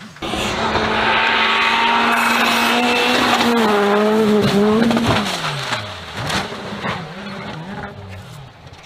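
Rally car engine held at high revs. About five seconds in its note drops steeply, then rises and falls several more times as the revs come and go, with a few sharp knocks mixed in.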